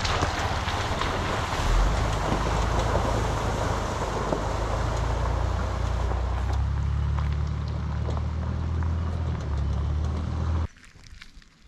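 Toyota LandCruiser four-wheel drive driving off along a gravel track: engine running and tyres on loose stones, with wind on the microphone. The sound cuts off abruptly about a second before the end.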